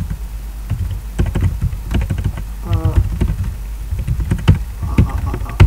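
Typing on a computer keyboard: quick, irregular runs of key clicks as commands are entered.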